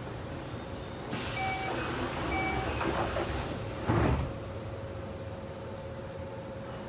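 Door-closing sequence inside a Keio 1000 series commuter car. A hiss starts about a second in, a door chime beeps twice, and the sliding doors shut with a thud about four seconds in, over the steady hum of the standing train.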